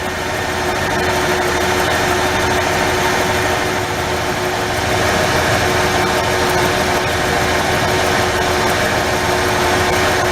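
Ford 4.9L inline-six engine idling steadily, with cylinder 3 intermittently losing spark: a misfire.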